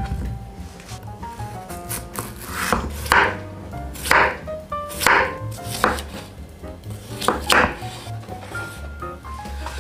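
Kitchen knife cutting through peeled raw potatoes and striking a wooden cutting board, with sharp chops about once a second at uneven intervals. Soft background music plays underneath.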